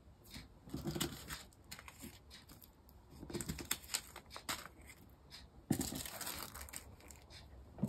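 Small plastic zip bags of diamond-painting drills crinkling as they are handled and laid down on a table, in several short bursts of rustling with scattered light clicks, the longest about six seconds in.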